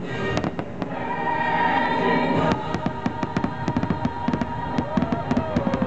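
Fireworks bursting over a choral music soundtrack. The bangs come thick and fast, in a rapid barrage, from a little before halfway in.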